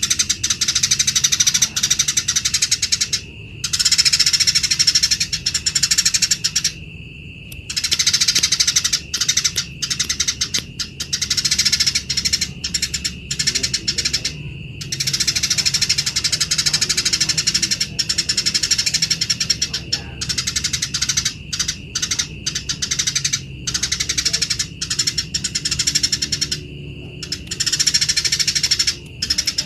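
Eurasian tree sparrows chattering harshly and rapidly, the rough agitated calls of sparrows fighting, in dense bursts broken by a few brief pauses. A steady thin high tone runs underneath.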